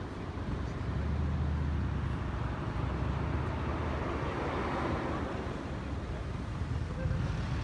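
Steady outdoor ambience: an even low rumble with a faint hiss over it, like distant traffic, with no clear single event.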